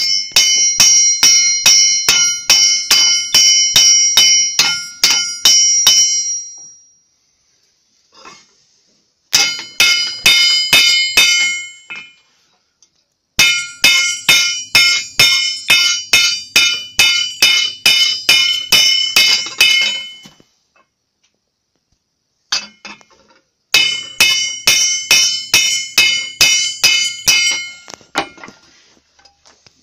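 Blacksmith's hand hammer striking a plowshare on an anvil while forging it, at about two to three blows a second. The blows come in four runs with short pauses between them, and each blow leaves the anvil and blade ringing with several high, steady tones.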